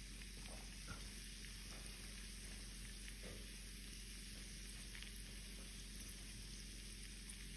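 Smoked streaky bacon sizzling faintly in its rendered fat in a frying pan: a soft steady hiss with a few small crackles.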